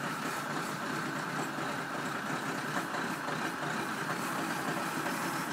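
Diesel engine of a John Deere 304J wheel loader running steadily just after a cold start on glow plugs.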